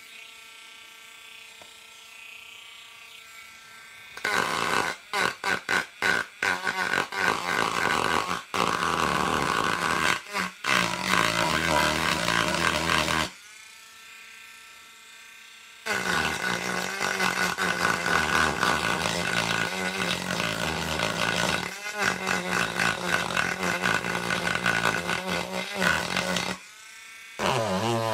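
Dremel Stylo+ rotary carving tool grinding into a stained wooden board. Long loud rasping stretches are broken by short lifts of the bit. The motor's quieter steady hum is heard at the start and again in a gap about halfway through.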